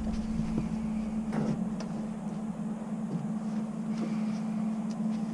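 A nylon cam strap being worked over a kayak in a pickup bed: scattered light clicks and rustles of strap and buckle, over a steady low hum.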